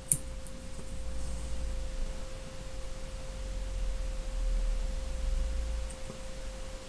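A single sharp snip of small fly-tying scissors cutting the butt ends of a feather hackle, just after the start. Under it a steady single-pitched hum tone and a low rumble.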